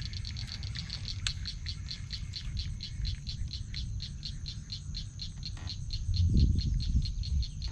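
Steady rhythmic high-pitched chirping from a calling animal, about four pulses a second, over a low rumble that grows louder about six seconds in.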